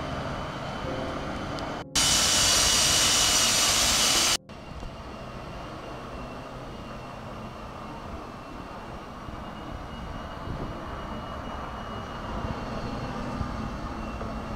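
Cordless drill motor running steadily under load, driving a loaded cart through a gear drive, with a thin high whine over a rough mechanical hum. About two seconds in, a much louder hissing rush cuts in sharply for about two and a half seconds, then stops just as abruptly.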